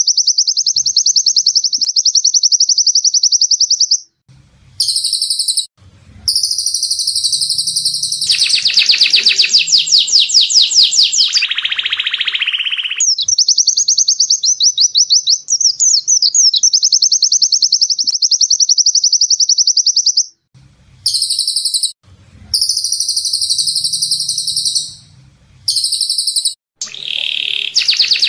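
Caged songbirds, white-eyes and canaries, singing long, very fast high trills. The song is broken by abrupt cuts, with a lower, buzzier passage about halfway through and again near the end.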